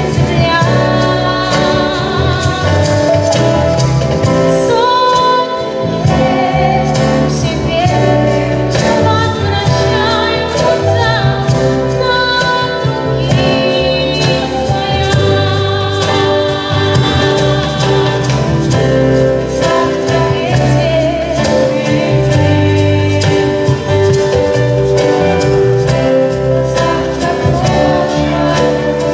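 A woman singing a song with vibrato over instrumental accompaniment with a steady beat and bass.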